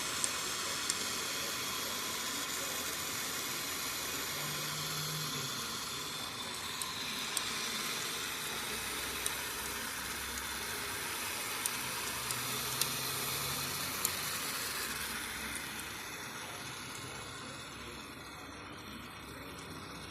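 Homemade PET-bottle strip-cutting machine running: a steady hiss with a few sharp ticks, growing quieter near the end.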